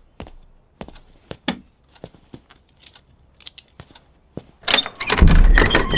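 A metal latch and bolt on old wooden double doors clicking and knocking as they are worked by hand. Near the end there is a loud, longer rattling scrape as the bolt is drawn and the doors shift.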